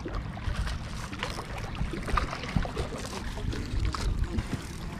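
Water splashing and sloshing as a hooked pike is brought in on the line, with irregular knocks and a low wind rumble on the microphone.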